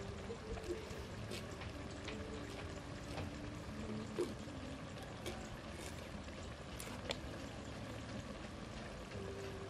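A knife cutting into the top of a young green coconut: scattered sharp taps and cuts as the blade chops and pries at the husk and shell, over a steady background hiss.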